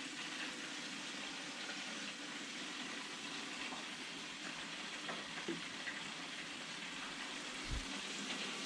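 Chicken deep-frying in an electric fryer: the oil sizzles steadily with faint crackles.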